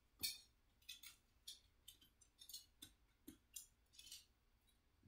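Small metal washers clinking and tapping as they are handled: a dozen or so light, sharp clinks at uneven intervals, the first the loudest.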